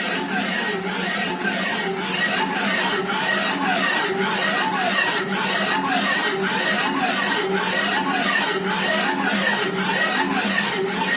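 Small CNC machine's axis motors running a job: a whine that keeps rising and falling in pitch as the axes speed up, slow down and reverse, over a steady hum from the machine.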